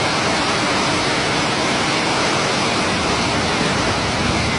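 Floodwater rushing down a city street in a fast torrent, a steady roar of churning water.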